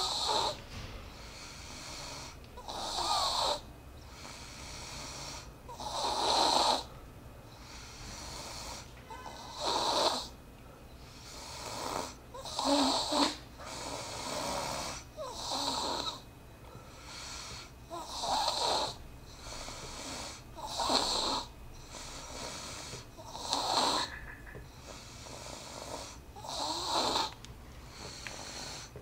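Steady rhythmic snoring from a sleeper, with a raspy snore about every three seconds and quieter breathing in between.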